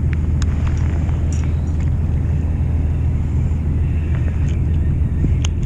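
Fishing boat's engine running steadily, a low rumble, mixed with wind on the microphone. A few light ticks sound over it.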